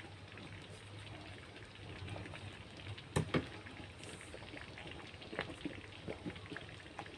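Chicken curry broth boiling in a wok, bubbles popping and crackling steadily, with one louder click about three seconds in.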